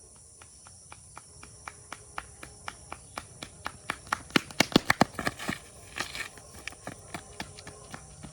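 Footsteps of a person running on a road, about four steps a second, growing louder toward the middle and then fading away.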